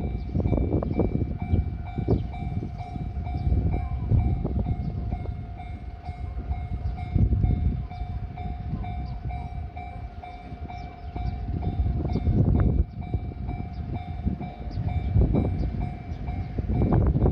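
Japanese railway level-crossing warning bell ringing with a steady repeating electronic clang. Irregular low rumbles sound underneath.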